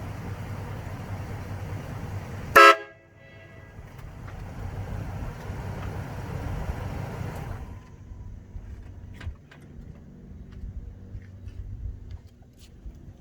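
One short, quite loud blast from a set of four trumpet air horns, fed from an onboard compressed-air tank, about two and a half seconds in. Steady low noise runs before and after the blast, and faint scattered ticks follow in the last few seconds.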